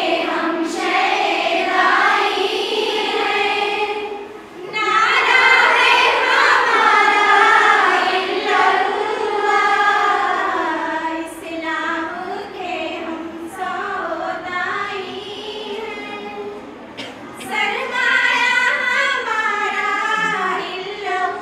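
Girls' voices singing together in unison, without instruments, in long held phrases with a short pause about four seconds in.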